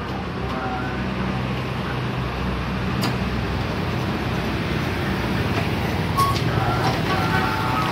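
Steady low engine hum of road traffic, with a couple of sharp clicks about three and six seconds in as the lever of a manual plastic-cup sealing machine is pulled down to seal a cup.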